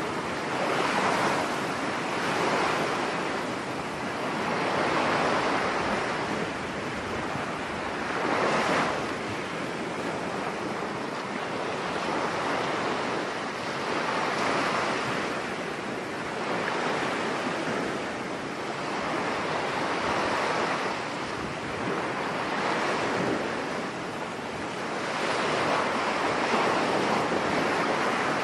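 Sea waves breaking on a beach in a storm, the surf swelling and easing every few seconds, with wind.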